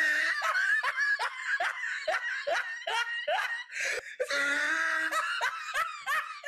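A small child laughing: a run of quick, high-pitched 'ha' pulses, about three a second, each dropping in pitch, with a longer, fuller laugh about four seconds in.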